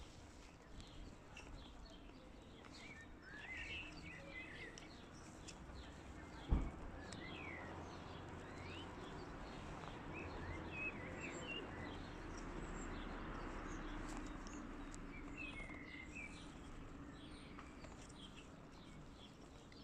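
Small birds chirping and twittering at intervals over steady background noise, with one sharp knock about six and a half seconds in.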